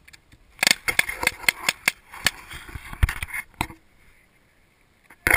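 A run of sharp, irregular clicks and knocks, several a second, which stops a little before four seconds in, leaving it nearly quiet until one loud knock at the very end.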